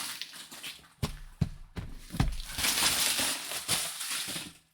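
Packaging being handled during an unboxing: a few sharp knocks, then a couple of seconds of rustling that stops just before the end.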